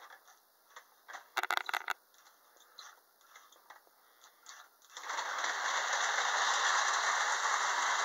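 A few scattered clicks and knocks, then about five seconds in a Lionel O-gauge model train starts running along the track with a loud, steady rattling noise from its wheels and motor.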